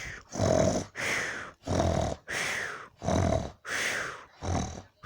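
Snoring in a quick, regular rhythm: about four rattling snores, each followed by a hissing breath, roughly one full breath every second and a half.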